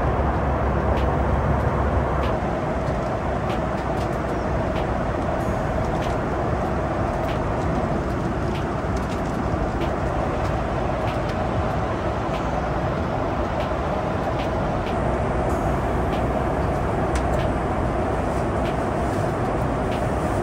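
Steady cabin noise inside a Boeing 737 MAX 8 airliner: an even rush of engine and air noise, with a few faint clicks. The deep rumble eases about two seconds in.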